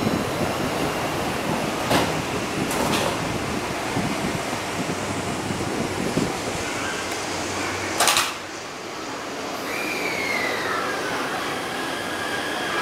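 Station platform noise beside a stopped Taipei Metro C381 train: a steady hum of ventilation and train equipment with a few knocks, and a loud sharp bump about eight seconds in. Near the end comes a falling tone, then steady high tones.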